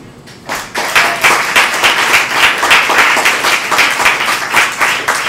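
Audience applauding at the end of a poem: many hands clapping together, starting about half a second in and keeping up steadily.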